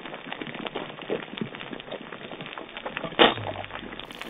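Eggs frying in oil in a pan on a portable gas stove, sizzling with a steady patter of small crackles and one louder pop about three seconds in.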